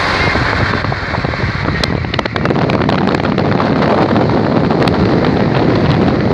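Wind rushing and buffeting over a phone's microphone held out of a moving car's window, with the car's road noise underneath and a few sharp crackles.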